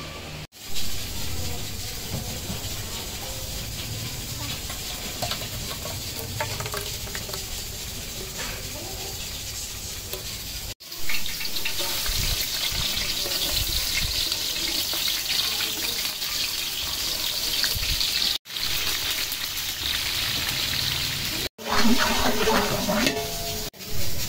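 A large pot of beef trotters bubbling on the boil. Then, after a cut, sliced onions sizzle steadily as they deep-fry in hot oil, with a slotted metal spoon stirring and scraping the pot near the end.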